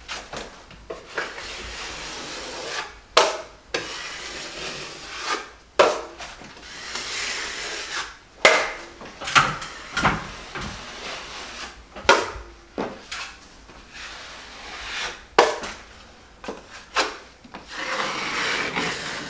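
Drywall taping knife scraping joint compound along a corner bead and against a metal mud pan: repeated rasping strokes, with sharper, louder scrapes every two to three seconds.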